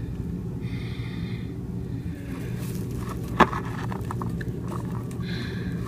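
Handling noise from a plastic toy figurine being moved over cloth: soft scraping and rustling with small ticks, and one sharp click about three and a half seconds in, over a steady low hum.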